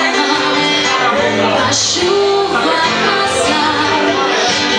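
Live acoustic band music: a woman singing into a microphone over strummed acoustic guitars.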